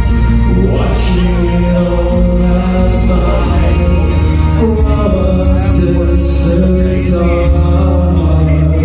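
Loud live song played through a venue's PA: a man singing over full band music with a steady low end and cymbal hits.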